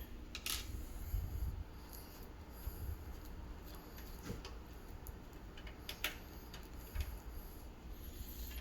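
Faint scraping and occasional light clicks of the small screws being turned out by hand from a PC case's tempered glass side panel, with low handling rumble.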